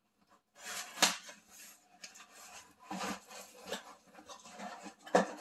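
A smaller cardboard box being worked out of a larger cardboard shipping box: cardboard rubbing and scraping against cardboard, with several sharp knocks, the loudest about a second in. It starts about half a second in.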